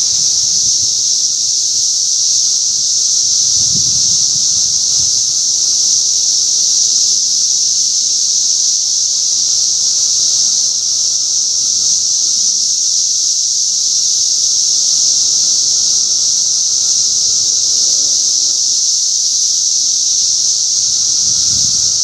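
Dense chorus of periodical cicadas: a loud, steady, high-pitched whine with no breaks, with a much fainter lower steady drone beneath it.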